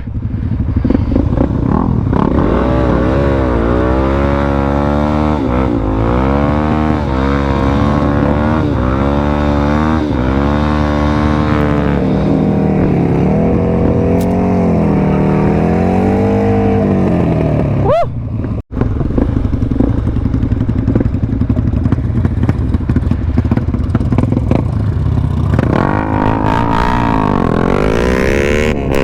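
Motorcycle engine revving up and down over and over, about once a second, then running more steadily. The sound cuts out briefly about two-thirds of the way through.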